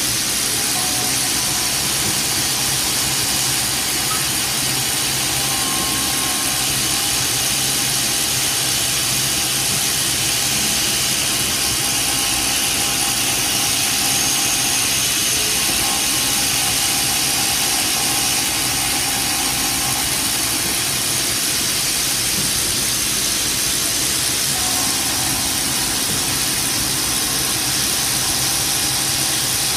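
CNC milling machine spindle running, its end mill cutting a linen phenolic part held in a rotary indexer: a steady machine hiss with a few faint steady tones.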